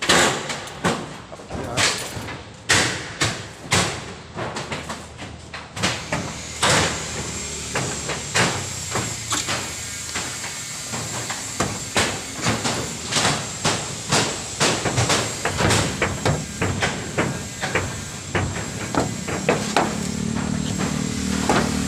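Irregular metallic knocks and bangs, a few a second, from hammering and prying on rusty corrugated iron roof sheets as the roof is stripped. The strikes come thicker after the first several seconds.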